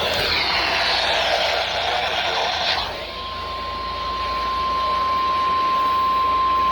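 A loud hiss of radio noise cuts off about three seconds in. A single steady alert tone begins and holds: a weather radio warning alarm tone, which comes just before a broadcast severe thunderstorm warning.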